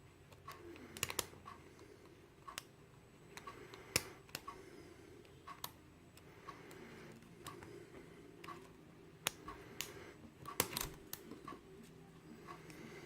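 Irregular light metallic clicks and taps of a hook pick and tension wrench working the pin stack of a Yale euro cylinder lock, with a few sharper clicks standing out.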